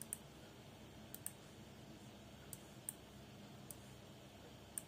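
Faint, scattered clicks of a computer mouse, some in quick pairs, over quiet room tone.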